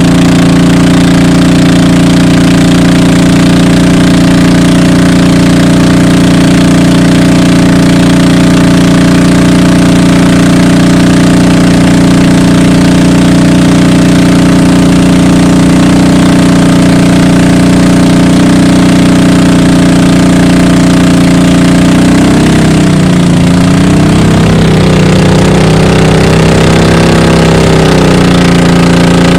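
Motorized bangka's engine running loud and steady close by; in the last few seconds its speed drops and comes back up a few times.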